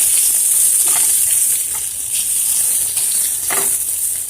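Leftover beef and onions sizzling in hot oil in a frying pan, a steady hiss.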